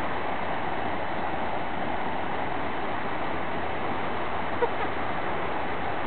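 Floodwater rushing steadily over a ford swollen by heavy rain, a continuous even rush of fast water. One short sharp sound stands out about four and a half seconds in.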